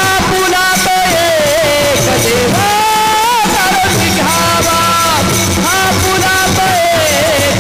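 Male Warkari singers singing a Marathi devotional bhajan, with long held, bending notes over a steady rhythmic accompaniment.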